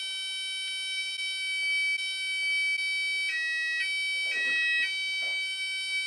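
Texecom Premier Elite alarm keypad sounding its steady, high-pitched exit tone while the system arms in part set. A little past halfway the tone briefly changes pitch twice, and at the very end it drops to a lower tone.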